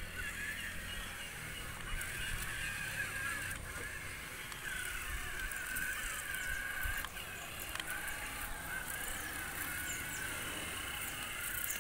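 Small BO gear motors of a remote-controlled robot car whining as it drives, the whine wavering in pitch and dropping out briefly about seven seconds in, over a low rumble.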